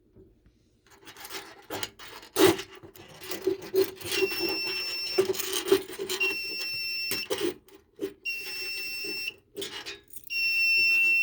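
Simplex MS-2 fire alarm panel's trouble buzzer giving a high beep about a second long every two seconds, starting about four seconds in: it is signalling a NAC circuit fault. Under it are rubbing and knocking from handling, with one loud knock about two and a half seconds in.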